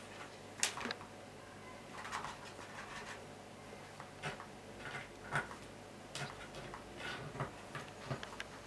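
A cat rummaging in a plastic bin: scattered soft rustles of stiff paper and small clicks and scratches against plastic as it noses and paws at the contents, coming at irregular moments.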